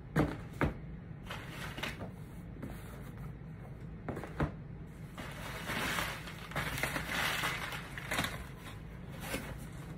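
Crumpled packing paper rustling and crunching as it is pulled out of a cardboard shipping box. Two sharp knocks at the start and another about four and a half seconds in; the rustling grows louder for the last few seconds.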